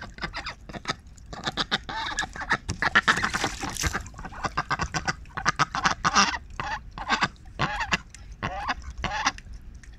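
Domestic ducks quacking again and again in short calls, with water splashing about three to four seconds in as they bathe in the pool.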